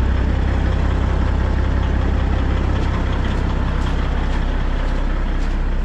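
Diesel engine of a 2003 Kenworth T800 dump truck idling steadily, with footsteps crunching on gravel.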